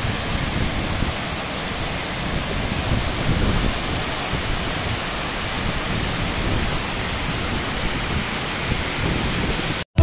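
Waterfall pouring over rock into a pool: a steady rush of falling water that stops abruptly just before the end.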